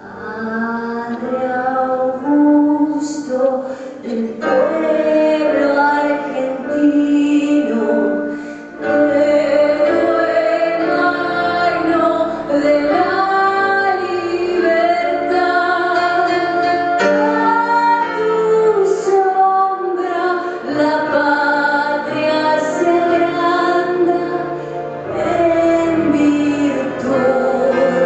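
A woman singing a slow melody with a live band accompanying her, heard through a theatre's sound system. The singing begins right at the start and carries on throughout with long held notes.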